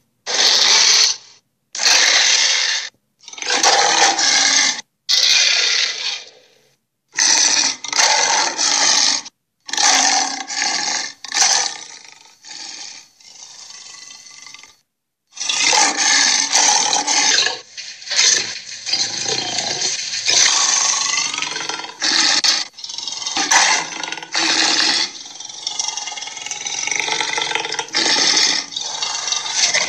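Creature sound effects: a run of short, gritty roars and growls with brief gaps between them, then a longer, nearly unbroken stretch of roaring from about halfway on.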